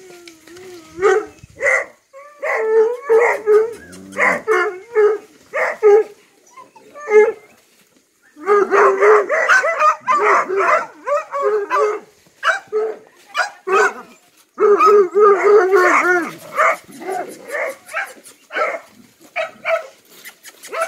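Dogs barking in quick repeated strings, with long unbroken runs of barking about eight seconds in and again around fifteen seconds in.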